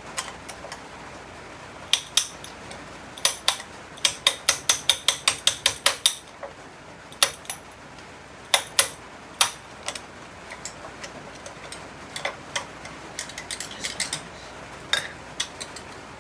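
Metal hand tools clicking and clinking as a broken socket ratchet is worked on: sharp separate clicks, with a quick run of about ten clicks a few seconds in and lighter ticks later.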